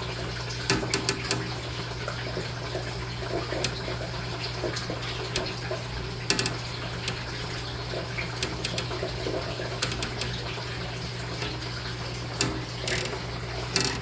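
Steady running water with a low hum under it, and scattered small splashes and clicks as baby water snakes move about in a shallow water tub.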